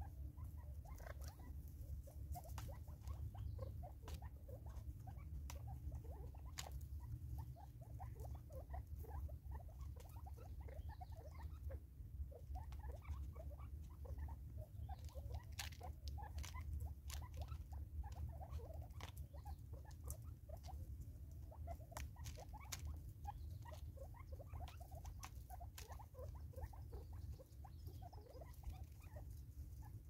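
Francolins pecking at food in a plastic bottle feeder: a steady, irregular patter of beak taps and small clicks, over a low steady rumble.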